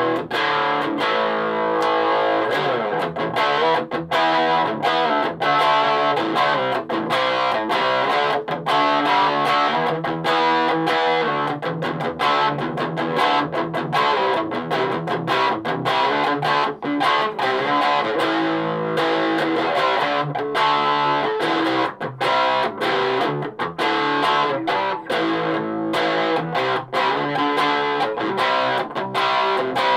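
Electric guitar played through a Donner 5-watt mini amplifier with the gain up: distorted riffs and chords, choppy with frequent short gaps between them.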